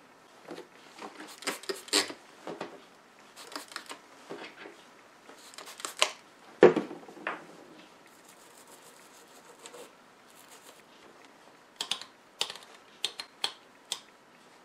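Small clicks, knocks and scrapes of a Heathkit MM-1 volt-ohm meter being handled. Near the end comes a quick run of about six sharp clicks, typical of its rotary selector switch stepping through its detents.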